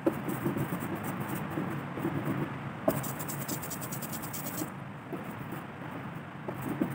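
Hand brayer rolling out tacky teal relief-printing ink on an inking slab, giving a sticky crackling hiss in back-and-forth strokes, as the roller is charged to ink a woodcut plate. The crackle is strongest in two stretches, at the start and again from about three seconds in, with one sharp knock near the three-second mark.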